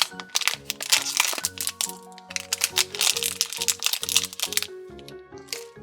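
Toy packaging crinkling and crackling as a surprise package is handled and opened, over light background music.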